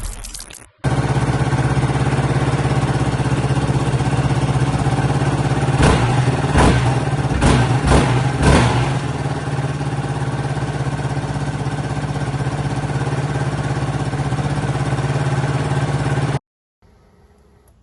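Yamaha YFZ450R quad's single-cylinder four-stroke engine idling, with five quick throttle blips between about six and eight and a half seconds in, then idling again until it cuts off suddenly near the end.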